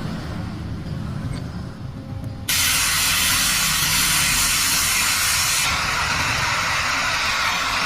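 A low rumble, then a loud steady hiss starts abruptly about two and a half seconds in, its highest part dropping away about three seconds later.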